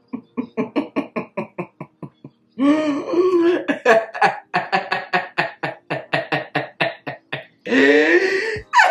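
A person laughing hard in a rapid run of short "ha" bursts, about five a second, broken twice by a longer, high, wheezing laugh, about three seconds in and again near the end.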